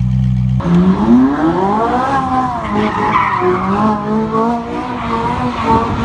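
Ferrari 458 Italia's V8 revving hard through a burnout, its pitch rising and wavering up and down, with tyres squealing. A brief steady idle cuts to the revving about half a second in.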